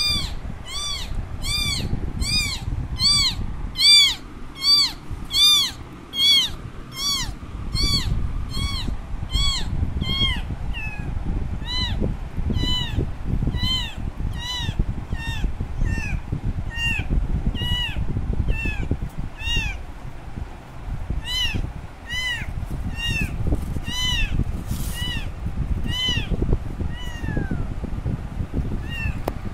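Very young kitten meowing loudly and over and over, about two short high cries a second, each rising then falling in pitch. The cries grow fainter after about ten seconds, over a steady low rumble. These are a kitten's distress cries for its mother, who has left it.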